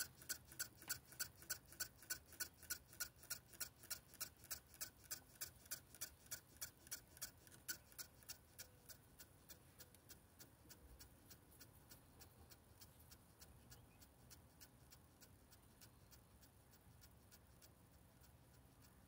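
JR S8477 SS 2K servos ticking faintly in small steps, about three ticks a second, as they work the swashplate down during automatic synchronization. The ticks grow fainter after about eight seconds and die away.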